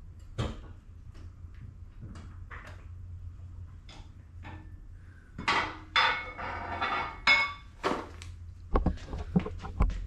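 Metal clanking as an engine hoist is let down and the car settles onto its K-member. Scattered light clicks come first, then from about halfway a run of clanks with short ringing, and a few sharp knocks near the end.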